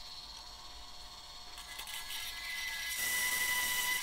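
Bandsaw running with a steady high whine, then louder with a hissing cut from about three seconds in as the blade saws a small steel part.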